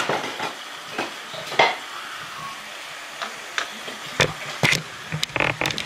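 Ground pork and sliced peppers sizzling in a nonstick pot, with a slotted spatula scraping and knocking against the pot as it is stirred. The knocks come thicker near the end.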